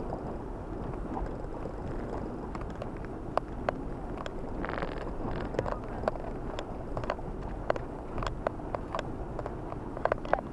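A car creeping along a snow-covered dirt track, heard from inside the cabin: a steady low rumble of engine and tyres, with scattered sharp clicks and knocks and a brief hiss about halfway through.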